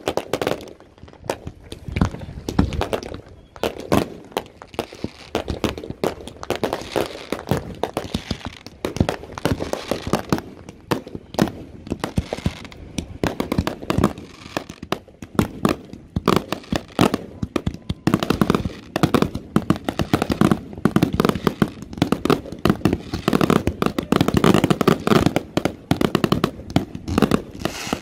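Consumer fireworks going off without a break: many overlapping bangs and crackles from aerial shells and fountains, growing denser over the last ten seconds.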